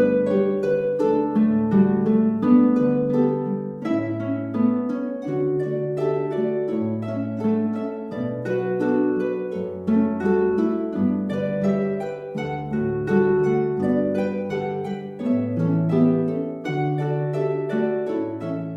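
Background music of plucked strings, harp-like, playing a flowing run of notes over a moving bass line.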